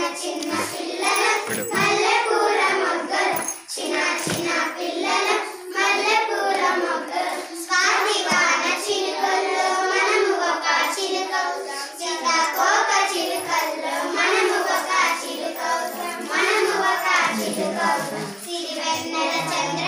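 A song playing for a dance: high singing voices over music, thin with almost no bass.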